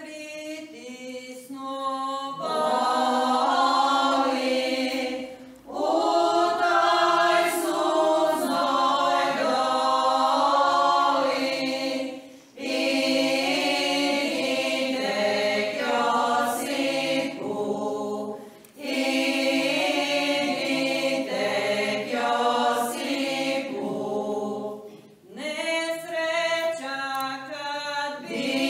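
Women's folk choir singing a Croatian church folk hymn unaccompanied, in long phrases with short breaks between them. One voice leads off alone and the others join about two seconds in.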